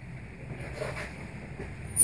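Low steady rumble of wind buffeting the microphone, with a few faint knocks about a second in.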